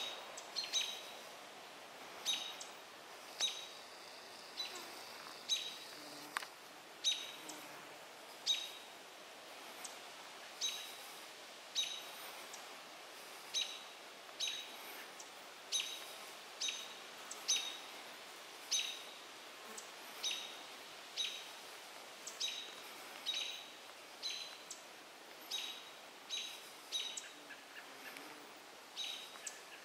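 American robin alarm calls: short, sharp notes repeated about once a second, sometimes in quick pairs, raised against a great gray owl perched in their territory.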